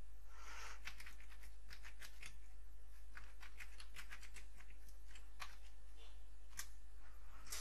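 Computer keyboard being typed on, irregular runs of quick key clicks, over a steady low hum. A short breathy rustle comes about half a second in.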